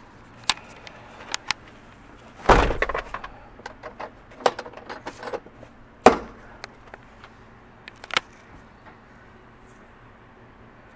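Scattered clicks and knocks, with two heavier thumps about two and a half and six seconds in, as someone moves around and handles things inside a van's cab.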